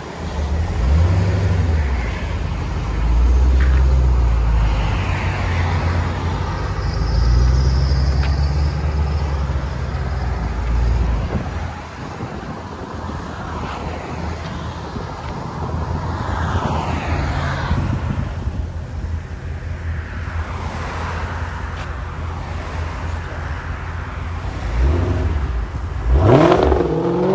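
Dodge Challenger Scat Pack's 6.4-litre V8 running through a dual exhaust with Vibrant glass-pack mufflers and the rear mufflers removed: a deep rumble with revs rising and falling for the first ten seconds or so, quieter in the middle, then revving up hard near the end as the car pulls onto the road and accelerates away, the loudest moment.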